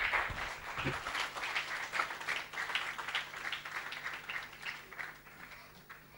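Audience applauding at the end of a talk, many hands clapping, gradually dying away toward the end.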